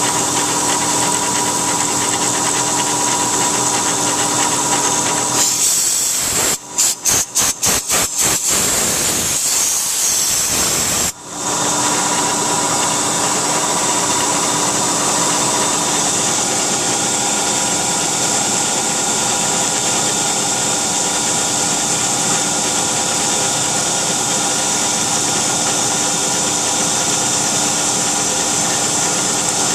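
CNC milling machine's end mill cutting aluminum under flood coolant: a steady whine of the spindle and cut over a coolant hiss. Partway through, the whine gives way for a few seconds to a plain hiss broken by several brief gaps, then returns.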